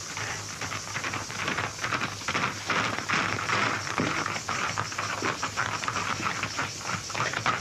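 Film soundtrack of rapid, irregular rustling and scuffling, like movement in a struggle, over a steady hiss from the old print.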